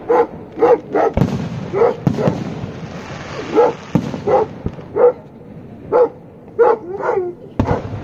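A dog barking over and over, about one bark every half second with a short pause partway through, mixed with the sharp bangs of aerial firework shells bursting.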